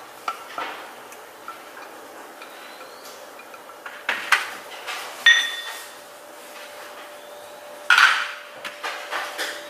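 Small bowls of sauce ingredients knocked and scraped against a small nonstick saucepan as they are emptied into it: scattered clinks and knocks, the loudest a ringing clink about five seconds in.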